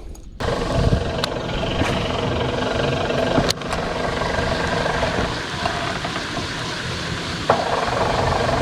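Boat motor running steadily, with a few sharp knocks.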